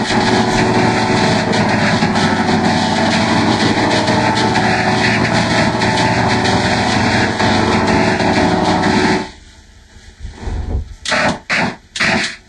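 Dense, heavily distorted wall of sound from many layered, effect-processed copies of a Fisher-Price Laugh & Learn puppy toy's voice and music. It cuts off abruptly about nine seconds in, and a few short loud bursts follow near the end.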